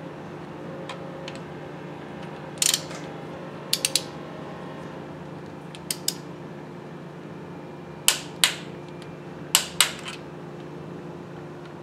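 Hand tools clicking and clinking against metal on the engine's underside, with sharp clicks mostly in close pairs, over a steady low hum.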